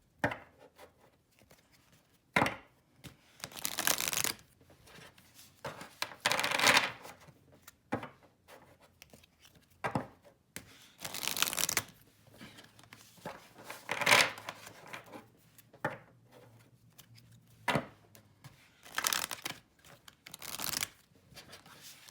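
Large oracle cards being shuffled by hand: a papery rush of sliding cards about every two seconds, with sharp snaps of the card edges between.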